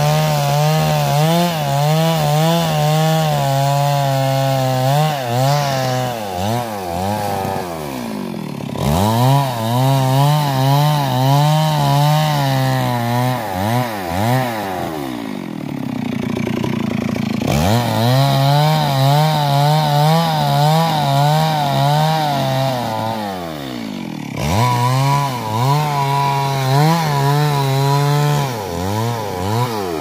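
Two-stroke chainsaw revved up four times and held at high revs, its pitch wavering as it cuts into the wood, then falling back between cuts.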